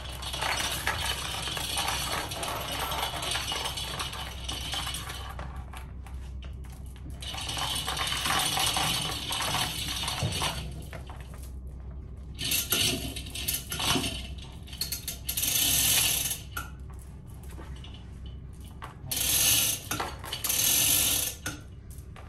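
Steel chain of a manual chain hoist rattling and clinking as it is hauled hand over hand, in several spells with short pauses between them.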